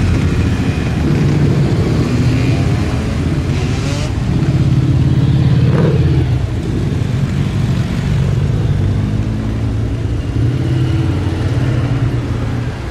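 A procession of motorcycles riding slowly past one after another, several engines running at low revs together. Here and there the pitch rises and falls briefly as riders open and close the throttle.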